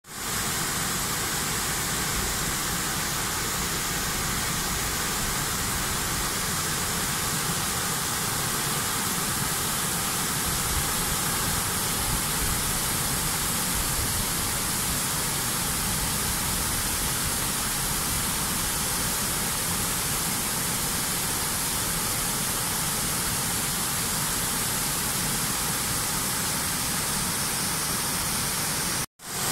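Steady rush of river water pouring over low stepped weirs, an even hiss and rumble that cuts out briefly near the end.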